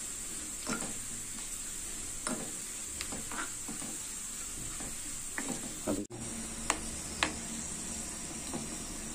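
Chopped onion, curry leaves and spices sizzling gently in oil in a non-stick frying pan, with a steel spoon stirring and scraping through them every second or so: a tempering being fried on low heat.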